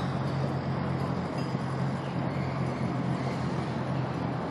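Tourist road train, a wheeled locomotive-styled tractor pulling open carriages, driving past with a steady low engine hum over general outdoor noise.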